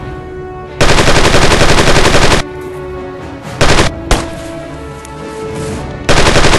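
Bursts of machine-gun fire: a long burst about a second in lasting over a second and a half, a short burst in the middle, and another near the end, all very loud, over steady background music.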